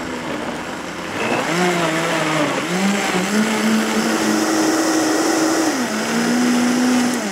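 A countertop blender running at speed, pureeing grilled tomatoes into a thick liquid. Its motor pitch climbs in steps over the first few seconds as the speed is turned up, then holds steady before cutting off near the end.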